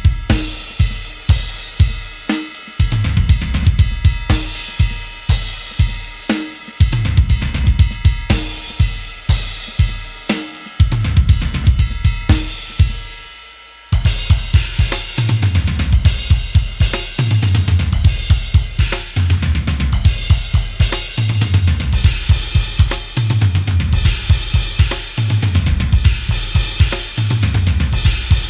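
Sampled metal drum kit from Toontrack's MetalHeads EZX library for EZdrummer 3 playing a groove of kick, snare, hi-hat and cymbals. About eleven seconds in the pattern stops on one hit that rings out for about three seconds, then the beat starts again.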